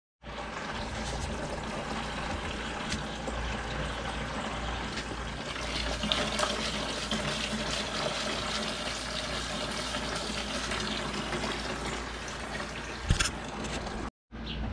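Water from a garden hose pouring steadily into a plastic cooler as it fills, with a brief knock near the end.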